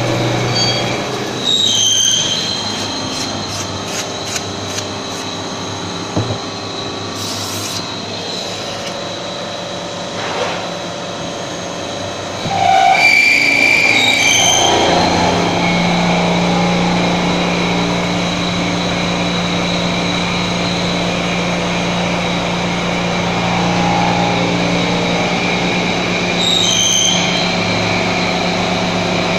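CNC milling machine's spindle running a cup grinding wheel along the edge of a long steel blade under coolant spray: a steady machine drone with high squealing tones that come and go. About halfway through it gives way to a steady low workshop machine hum.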